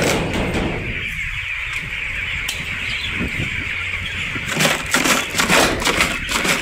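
A large flock of broiler chickens packed in a poultry shed, making a steady din of calls and movement; from about halfway through it turns more uneven, with many short sharp sounds mixed in.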